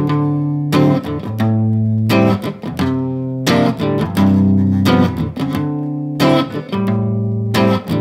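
Guitar playing a G7, D7, A minor 7, C7 progression in shell chords on the low strings, each chord struck with a pick and left ringing in a steady strumming rhythm.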